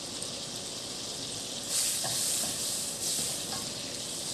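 Butter melting in hot cooking oil in a wok, sizzling steadily while a wooden spoon stirs it. The sizzle swells louder twice, a little under two seconds in and again about three seconds in.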